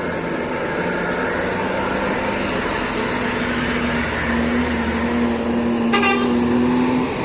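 A bus's Basuri musical horn (a 'telolet' horn) sounding a long held note that shifts slightly in pitch, with a brief rattle near the end.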